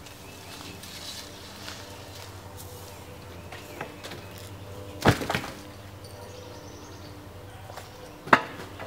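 Wooden poles knocking against wood or the ground: a sharp double knock about five seconds in and another single knock about three seconds later.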